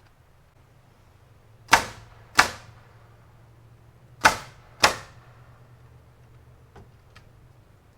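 Four sharp, loud bangs in two pairs, each dying away quickly, typical of fastening work on a building site.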